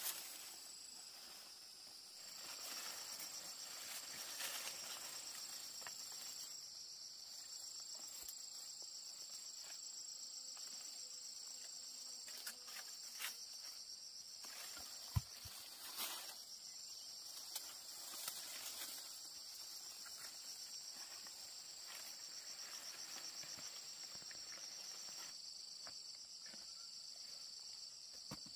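Field insects chirring in a steady high-pitched drone, with leaves rustling and a few sharp clicks and snaps from movement through the vegetation.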